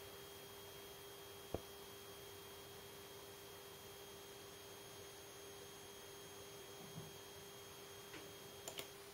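LG E2260S LED monitor giving off a faint, steady electrical buzz with a thin high whine over it: the annoying buzzing fault the monitor has. A single click comes about one and a half seconds in, and the high whine cuts off with two clicks near the end.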